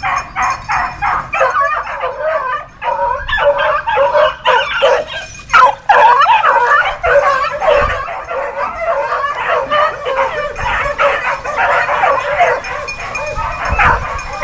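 Hound puppies yipping and whining in rapid, overlapping cries: a regular run of short yips at first, then a dense chorus. It is the excited voice of young rabbit dogs working a rabbit's scent.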